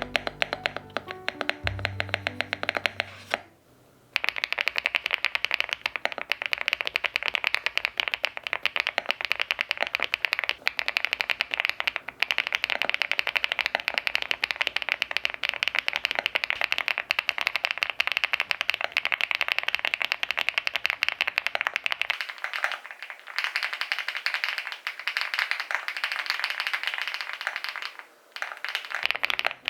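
Background music for about the first three seconds, then fast, continuous typing on an Evoworks EVO80 custom mechanical keyboard: many keystroke clicks a second, with a brief pause near the end.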